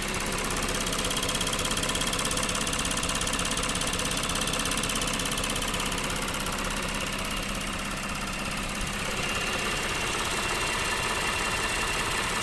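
Lexus GS 300's 3GR-FSE V6 engine idling steadily, with a fast, even clicking over a high whirring whine; the owner reports these noises appeared suddenly.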